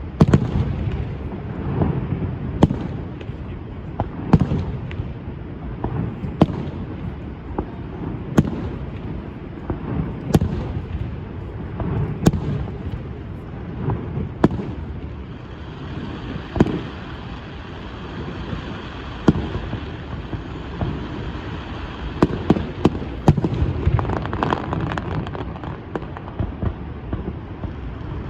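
Fireworks display: sharp bangs and deep booms about every two seconds over a low rumble, turning into a denser run of crackling reports near the end.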